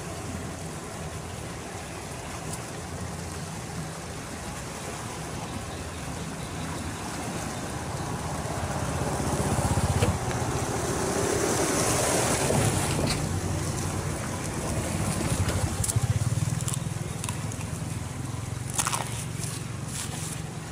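Steady rush of flowing river water, swelling to louder sloshing and dripping about halfway through as a net on a long pole is lifted out of the water, with a few small knocks near the end.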